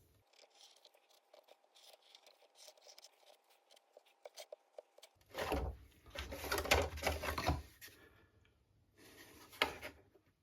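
Hands handling small wooden model parts: light clicks and ticks over a faint steady tone, then louder rubbing and scraping about five seconds in, and a shorter burst of rubbing near the end.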